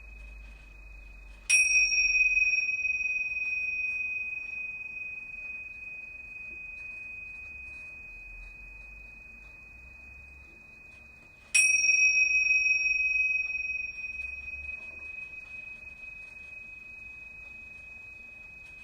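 A high-pitched chime struck twice, about ten seconds apart, each strike ringing one clear tone that slowly fades over many seconds.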